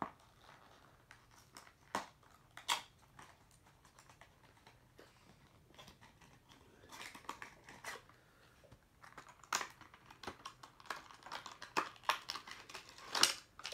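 Hands opening a diecast model car's packaging: a run of small clicks and taps, sparse at first and busier in the second half.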